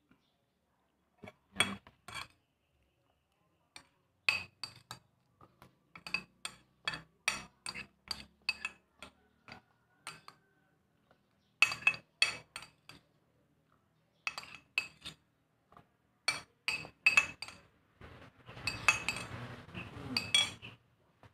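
Metal spoon clinking and scraping against a ceramic plate while eating: many quick, sharp taps in irregular runs, with a longer, denser run of scraping near the end as the plate is tipped up.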